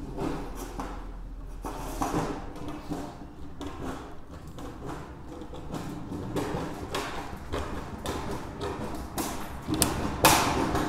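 Aviation snips cutting a circular hole in galvanized steel sheet: a run of irregular, crunching snips, loudest near the end.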